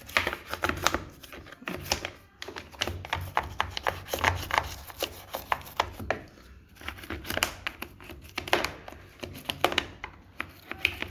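Brush scrubbing the crevices of a washing machine's parts: quick, irregular scratchy strokes, with a short pause about six seconds in.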